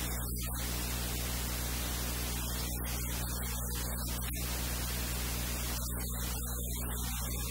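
Steady electrical mains hum with a constant hiss of static underneath, unchanging throughout.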